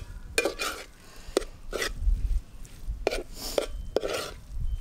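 Metal spoon scraping and knocking against a metal pot while stirring a thick onion-tomato gravy with spices. The strokes are irregular, with a lull about two seconds in, over a low rumble.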